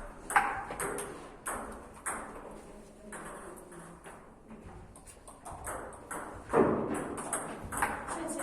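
Table tennis ball clicking repeatedly off bats and table during rallies, a sharp hit every half second or so, the loudest about half a second in and near six and a half seconds.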